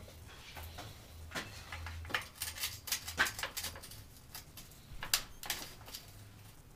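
Irregular light metallic clicks and clinks of hands and tools working on a bicycle in a repair stand, over a faint low steady hum.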